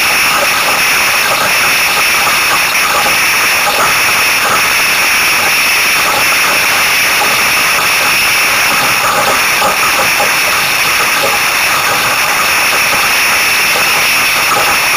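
Steady, loud hiss of wind and water rushing past the hull of an F16 catamaran sailing fast, heard from a camera mounted low on the hull.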